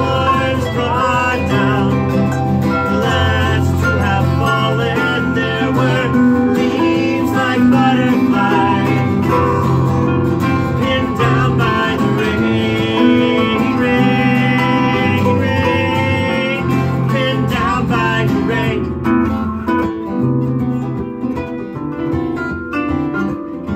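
Live acoustic folk music: harp and acoustic guitar playing together, with a wavering melody line over them, thinning out and getting a little quieter from about nineteen seconds in.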